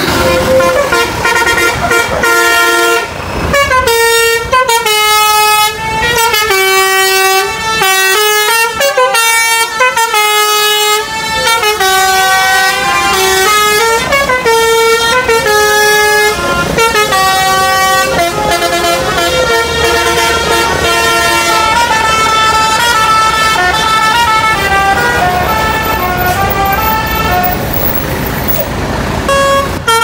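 Telolet basuri musical air horns on a tour bus playing a tune: a loud, unbroken run of stepped horn notes, sometimes several sounding together.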